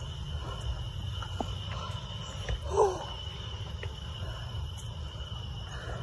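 Crickets chirping steadily, with a few faint knocks of footsteps on a wooden suspension footbridge deck. One brief louder squeak comes about halfway through.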